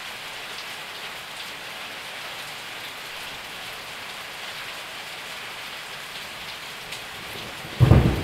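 Steady rain falling, with a sudden loud clap of thunder breaking in near the end.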